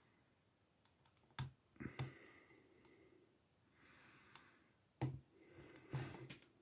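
Faint, irregular metallic clicks of a lock pick and tension wrench working the pins inside a pin-tumbler padlock.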